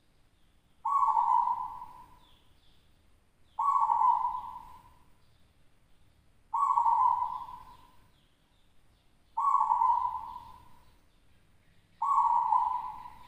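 Caged zebra dove (perkutut lokal) singing: five song phrases about every three seconds, each starting abruptly and trailing off over a second or so.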